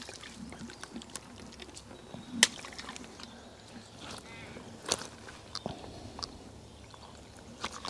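A few sharp slaps and taps as a freshly landed tench wriggles in the landing net while it is handled; the loudest come about two and a half seconds in and again about five seconds in.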